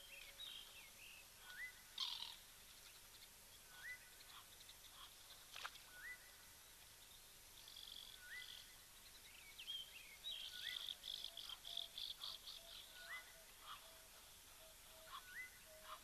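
Faint wild birdsong: one bird repeats a short, rising call about once a second while other birds chirp, with a quick run of chattering chirps about two-thirds of the way in.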